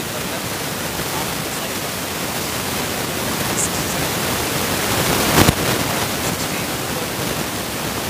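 Steady, loud hiss of background noise, with a single sharp knock about five and a half seconds in.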